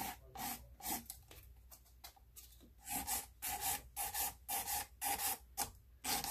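The 180-grit side of a nail file rasping back and forth across a cured polygel nail: three strokes, a pause of about a second and a half, then a steady run of quick strokes, three or four a second.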